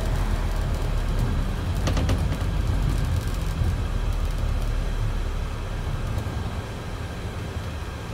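Scania E400 double-decker bus under way, heard from inside on the upper deck: a steady low rumble of its five-cylinder diesel with road noise, and a few short rattles about two seconds in. The sound eases off a little near the end.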